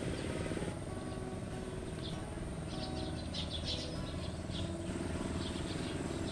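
Small birds chirping in short bursts of high notes, a few clusters about two to five seconds in, over a steady low drone.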